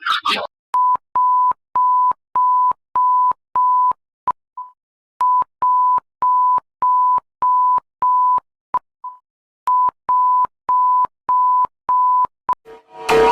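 Alarm beeps of a mock Emergency Alert System warning: short steady electronic beeps at one pitch, about two a second, in three runs with short pauses between them and faint clicks between the beeps.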